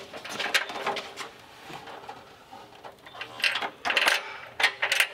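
Light metal clinks and knocks as a sheet-metal core support carrying an aluminium fan shroud and electric fans is handled and set into place on a truck frame. The knocks come scattered, bunching more thickly in the second half.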